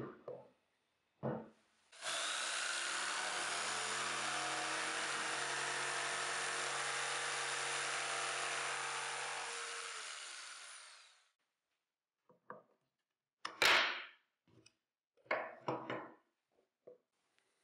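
Electric jigsaw cutting wood: it starts abruptly about two seconds in, runs steadily for about eight seconds, then winds down. Short knocks come before the cut, and a cluster of sharp wooden knocks follows it, one of them loud.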